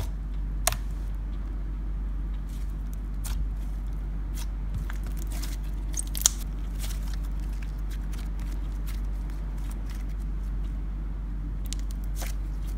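Slime being squeezed, poked and pressed in the hands, giving scattered small sticky clicks and pops, with a sharp pop about six seconds in, over a steady low hum.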